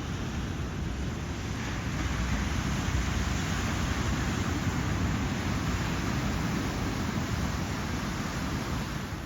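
Ocean surf breaking and washing up the beach, with wind rumbling on the microphone. The hiss of the wash swells about two seconds in and eases after about six.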